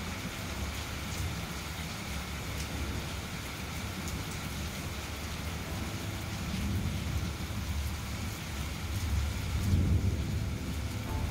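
Steady rain falling, with a low rumble of thunder that builds through the second half and is loudest near the end.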